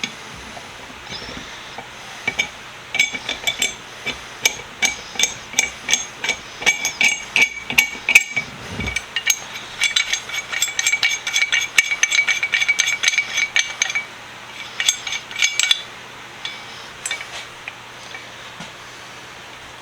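Craftsman pipe wrench's steel adjusting nut (thumb wheel) being fitted and turned on the hook jaw: quick runs of light metal-on-metal clicks and clinks with a slight ring. They start about three seconds in, break briefly around eight seconds, and thin out to a few scattered clicks after about sixteen seconds.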